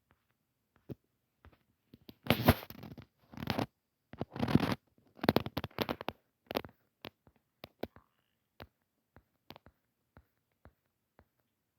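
A few bursts of scraping and rustling close to the microphone in the first half, followed by scattered single clicks, about one every half second to a second.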